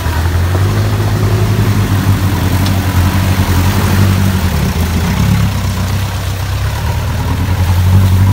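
Off-road vehicle engine running with a steady low drone. It eases off about five seconds in and picks up again near the end.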